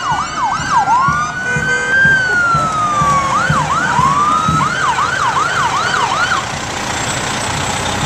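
Emergency vehicle siren sounding a fast yelp, switching to one slower rise-and-fall wail about a second in, then back to the fast yelp before cutting off about six seconds in.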